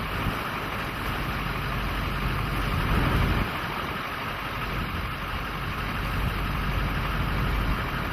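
Strong wind buffeting the microphone and the truck in a steady rushing noise, with a heavier low gust about three seconds in.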